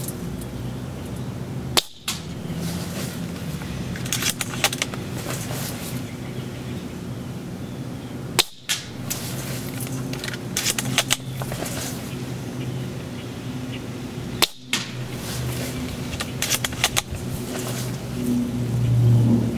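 An AGM MK96 spring-powered airsoft bolt-action sniper rifle firing three shots, each a sharp snap, about six seconds apart. Between shots comes a quick series of clicks as the bolt is cycled. A steady low hum runs underneath.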